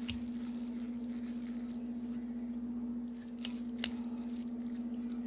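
Noodles being stirred in a ceramic bowl with a utensil, giving a few short clicks against the bowl, over a steady low electrical hum.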